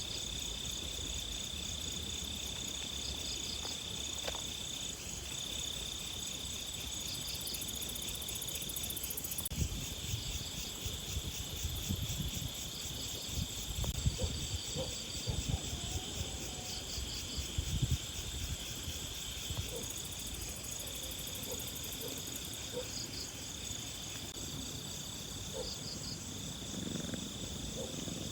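Insects, crickets among them, chirping in a continuous high trill, with short chirps repeating over it every second or two. Low bumps and rumbles come through for several seconds around the middle.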